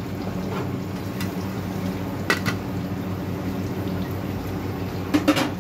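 Mutton curry bubbling in an open pressure cooker over a steady low hum, with short metal clinks about two seconds in and again near the end as the cooker's lid is set on.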